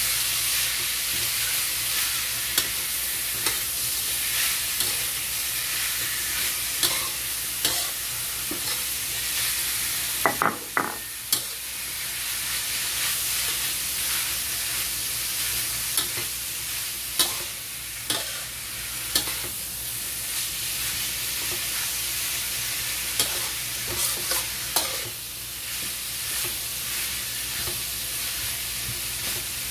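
Chicken, carrot strips and mushrooms sizzling in a wok as a spatula stirs and turns them. Scattered scrapes and taps of the spatula against the pan run through it, with a few louder knocks about ten seconds in.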